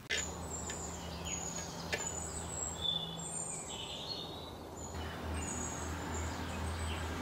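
Small birds chirping in short, high calls scattered throughout, over a steady low hum.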